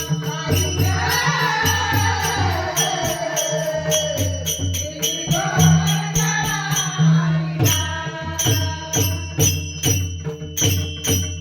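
A Marathi gaulan sung by a woman: one long, bending held vocal line over a steady beat of jingling hand percussion and a low drum. The voice stops about two-thirds of the way through while the jingles and drum keep the beat going.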